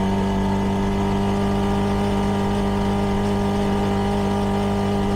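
CFMoto 300NK's single-cylinder engine running under way at a steady speed on its stock exhaust, its note holding constant.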